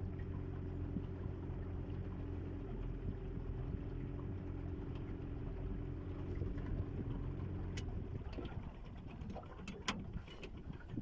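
Small boat's outboard motor running steadily, cut off about eight seconds in; a few light clicks and knocks follow.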